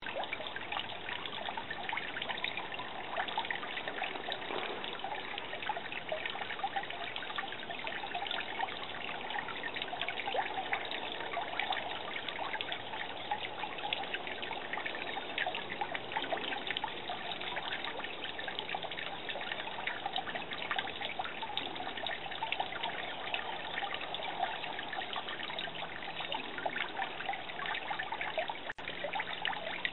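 Water trickling and splashing steadily down a stone tree fountain built of Idaho gold mica slate, with a brief dropout near the end.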